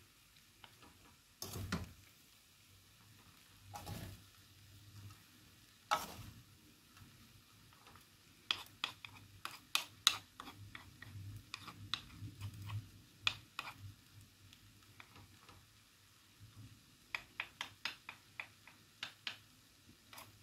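Wooden and metal spoons stirring and tossing fried rice in a metal wok, with scattered clicks and scrapes of the spoons against the pan, coming in quick clusters through the middle and again near the end.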